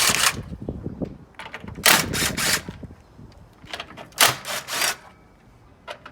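Ratchet wrench clicking in three short bursts, loosening the 10mm bolts that hold the grille on.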